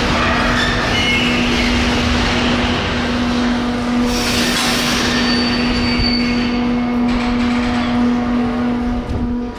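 Sliding-wall freight wagon rolling slowly on rails while being shunted, its wheels rumbling steadily with a few brief high squeals. A steady low hum runs underneath.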